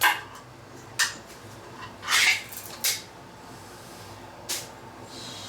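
A can of cat food and its dish being handled and set down: a few short clatters and scrapes about a second apart, with a longer scrape a little after two seconds in.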